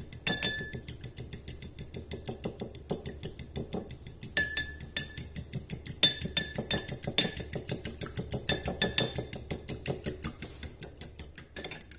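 A metal fork beating egg, oil and milk in a small glass bowl, its tines clinking against the glass in a quick, steady rhythm of about five strikes a second.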